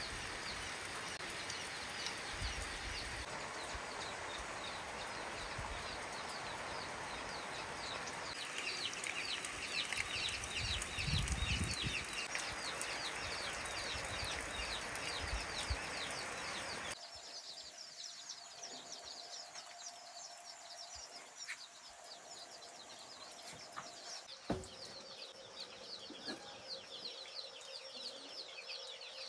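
Birds chirping in quick, high, repeated calls over a steady hiss. About two-thirds of the way in, the hiss stops abruptly and the chirping goes on more quietly, with a few light knocks.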